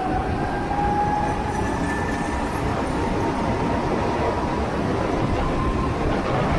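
Go-kart engine running at speed under a steady rush of wind and road noise, its note climbing slowly in pitch.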